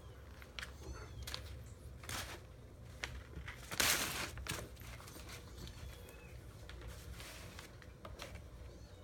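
Kittens scrambling and pouncing on crumpled brown packing paper: the paper rustles and crinkles with scattered light taps and scratches, and the loudest crinkle comes as a burst about four seconds in.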